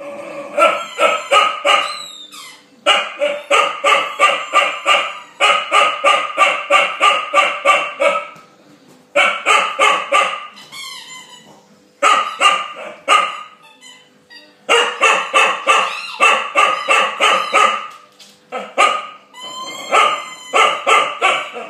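Young chow chow, eight months old, barking at a bulldog over his bone: fast runs of sharp barks, several a second, in bursts of a few seconds with short pauses between.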